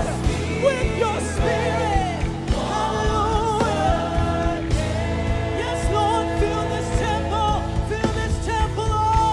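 Gospel worship music: a choir singing with vibrato over sustained keyboard chords, bass and a steady drum beat.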